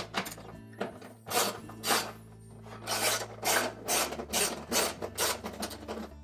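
Socket ratchet being worked back and forth to loosen a bolt under a washer's outer tub: a run of short rasping ratchet clicks, about two a second.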